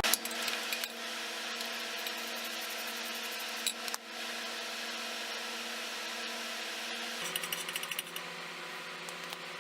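Hand tools and metal parts clinking during work on the differential's carrier bearing cap bolts, with a quick run of rapid clicks about seven and a half seconds in, over a steady low hum.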